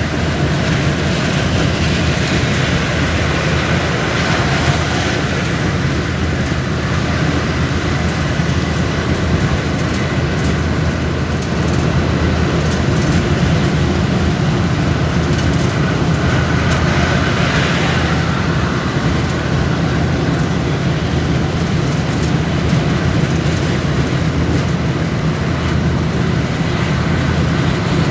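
Steady road and engine noise heard from inside a vehicle travelling at highway speed: a constant low rumble with tyre and wind hiss over it.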